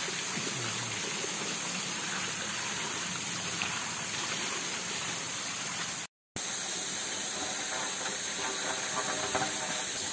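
Water pouring steadily from a small spout and splashing over a person bathing beneath it, a continuous gushing hiss. It cuts off abruptly about six seconds in, after which a similar steady hiss carries on.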